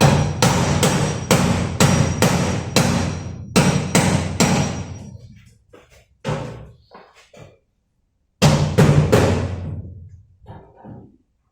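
Repeated hammer blows on metal, roughly two or three a second in irregular runs, each strike ringing briefly. The blows stop abruptly twice and then start again.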